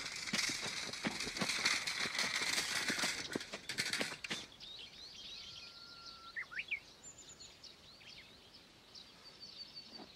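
A wheeled cart rattling and clattering as it is pushed over the ground, stopping about four seconds in. Then quieter outdoor air with small birds chirping.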